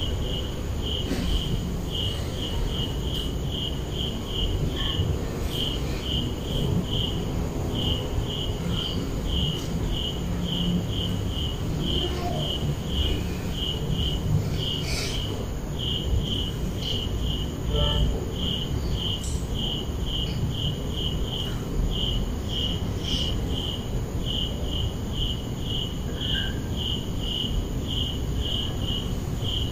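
Insect chirping, a cricket by its sound: short high chirps at about three or four a second, broken by brief pauses, over a steady low rumble.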